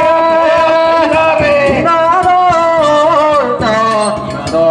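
A man singing a danjiri hiki-uta (float-pulling song) in long, wavering held notes with sliding ornaments, heard through loudspeakers, with scattered sharp knocks underneath.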